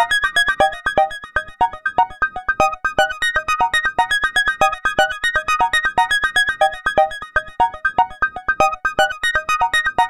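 Electronic ringtone music: a synthesizer playing a quick, even stream of short, bright notes in a repeating melodic pattern.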